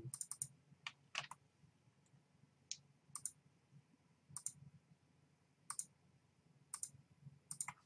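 Computer mouse clicking, about ten short, sharp clicks at irregular intervals, some in quick pairs, as points of a line are placed in a drawing program. A faint steady low hum lies underneath.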